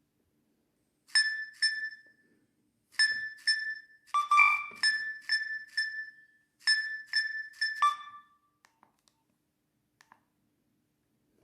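Nokia 7250 ringtone playing from the phone's loudspeaker: a short melody of bright, bell-like electronic notes, each dying away quickly, in three or four phrases of about a dozen notes that end about eight seconds in. A few faint clicks follow near the end.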